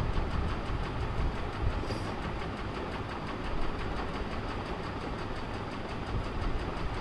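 Steady rumbling background noise with an even hiss, unbroken throughout, with no clear separate events.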